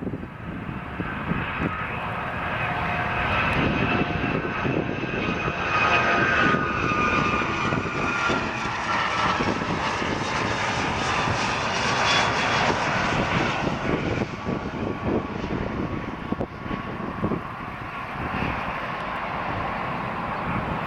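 United Airlines Boeing 757-300 jet passing by. The engine roar builds to a peak in the middle and eases off toward the end, with its whine sliding down in pitch as the plane goes past.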